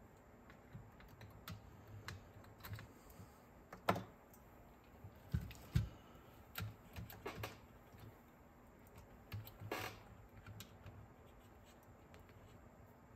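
Light, irregular clicks and taps of small parts and tools being handled on a Nakamichi 680ZX cassette deck's internals, with a few sharper knocks around four and six seconds in and a brief scrape near ten seconds in.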